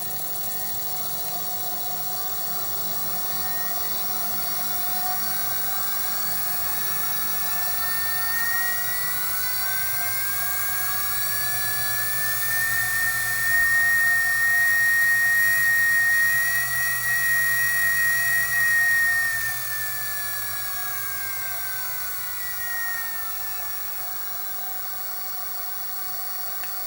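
Treadmill DC drive motor powered by an MC1618DLS motor control board, whining as it speeds up over about thirteen seconds, holding top speed for several seconds, then slowing down again. The rising and falling pitch is the board driving the motor through its speed range, showing it now gives output to the motor.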